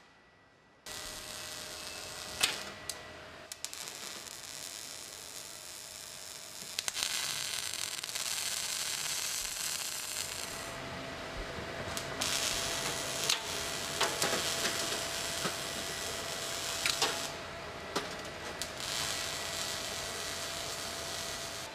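Electric arc welding on steel car-body panels: a steady sizzling hiss with crackles and sharp pops, starting about a second in and breaking off briefly twice, over a faint steady hum.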